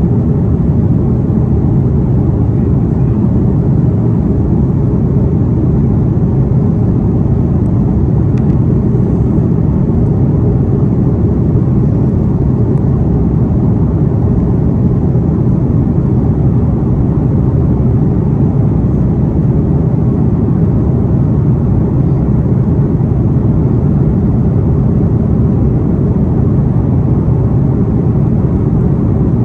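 Steady, loud cabin rumble inside an Airbus A330 airliner under way, from its jet engines and the airflow over the fuselage.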